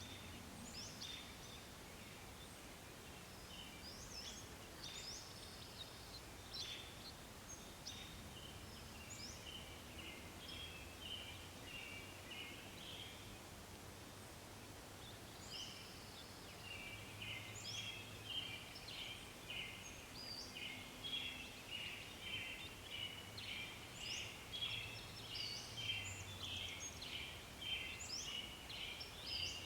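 Birds calling: many short, high chirps and peeps, scattered at first, then thickening into a fast, busy run of peeping from about halfway.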